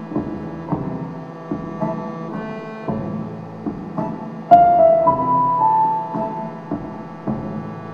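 Live band music: a steady beat of drum strokes, about two a second, under held keyboard-like tones. About four and a half seconds in a loud ringing note is struck and gives way to two held higher notes, one after the other.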